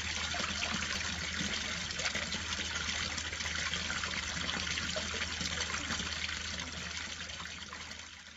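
Water from a small garden fountain splashing and trickling steadily over its rim, fading out over the last couple of seconds.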